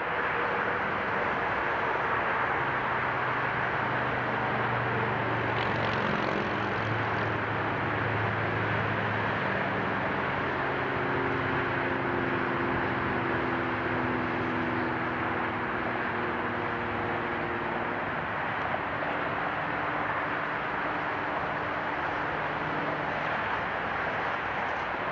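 Diesel freight locomotives running as they approach slowly, a low engine hum that changes pitch now and then, over a steady hiss of background noise.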